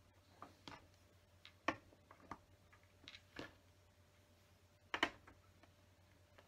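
LEGO bricks clicking as they are handled and pressed onto a model's wall: a scatter of light plastic clicks, the sharpest about five seconds in.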